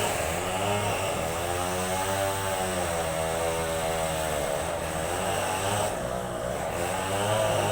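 An engine running steadily, a low drone that slowly sways in tone.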